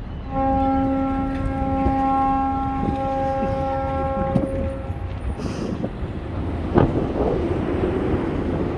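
A ship's horn sounds one long, steady blast of about four seconds over a low rumble, followed by a single knock about seven seconds in.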